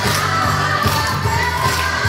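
A recorded Christmas pop song with singing over a steady bass beat.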